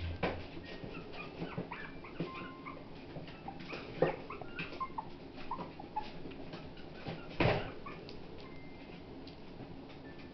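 A four-week-old maltipoo puppy whimpering among plastic baby toys, which click and clatter as it paws and noses them, with a louder knock about seven and a half seconds in.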